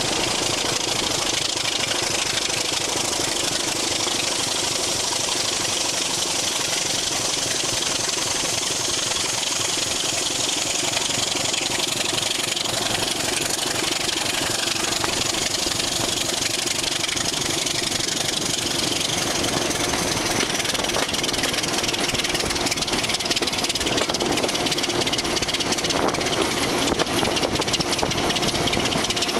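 Ex-BR Class 26 diesel locomotive D5343's Sulzer six-cylinder engine running under power while the locomotive travels, heard from the cab window with wind rush over the microphone. A faint high whistle rises and falls back over the middle, and the sound grows a little louder near the end.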